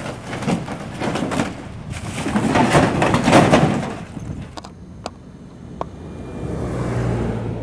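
Fallen sheet-metal awning and brick rubble clattering and scraping as it is pulled about, loudest about three seconds in. A few sharp clicks follow, then a low rumble near the end.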